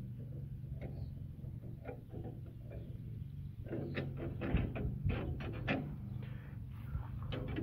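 Steel pin clicking and knocking against the steel square tubing of a loader arm as it is worked through the holes, a quick run of metallic taps from about halfway through and one more near the end. A low steady hum runs underneath.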